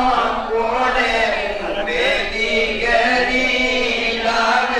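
Devotional chanting: voices singing a chant with long held notes.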